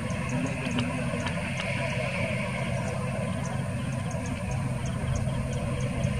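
ATR 72-600's Pratt & Whitney PW127-series turboprop engines running at low power as the aircraft rolls slowly on the runway: a steady drone with a low hum.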